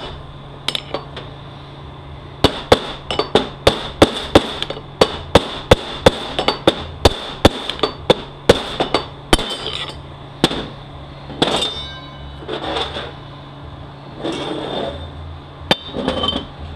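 Hammer blows on a bushing driver, forcing a tight bushing into a 6L80E transmission hub. A fast run of sharp metallic taps, about three a second, comes in the first half; after that there are a few scattered strikes and some clattering. The bushing is binding and resisting going in.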